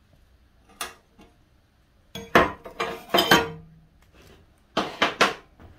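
Sharp clinks and clanks of steel on steel as a chisel levers and knocks a knife-shaped piece, cut from a big saw blade, loose from the plate. There is a single clink about a second in, a cluster of louder clanks between two and three and a half seconds, and three quick clinks near the end.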